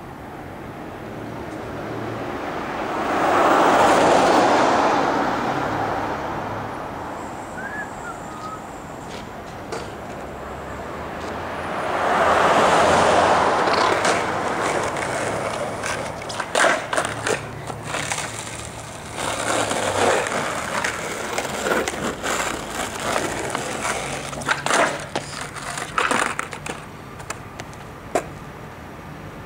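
Skateboard wheels rolling on pavement, swelling and fading as the board passes by twice. Then comes a run of sharp clacks and knocks of the board popping and landing, with more rolling between them.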